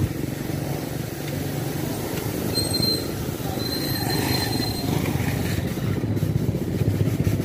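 Street traffic: a steady engine rumble as motorcycles and motorcycle tricycles pass close by. A brief high squeal comes in about two and a half seconds in, and a run of even ticks near the end.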